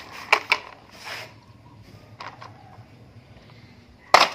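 A few light knocks of hard plastic being handled, then a loud clatter and rustle near the end as a plastic toy truck is pushed into a woven plastic sack.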